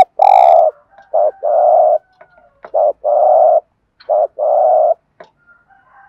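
Spotted dove cooing: four two-part coos, each a short note followed by a longer held one, about one every one and a half seconds.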